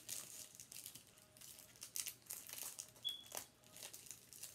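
Faint, irregular crinkling of a plastic packet of nail-art stickers being handled, with a brief high tone about three seconds in.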